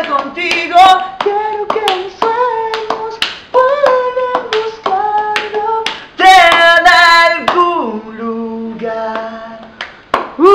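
A young man singing a slow Spanish-language ballad a cappella, holding a long high note about six seconds in and then sliding down, with sharp hand taps keeping the beat.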